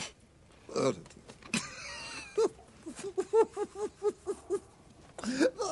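A man giggling: a run of short, high, squeaky "hee" sounds, about four a second, held in through the nose and teeth, after a few breathy snickers.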